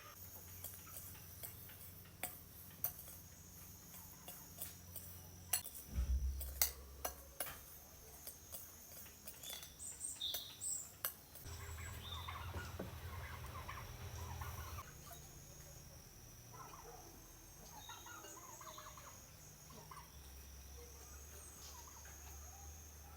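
Farmyard fowl calling, with scattered sharp clicks and knocks through the first half.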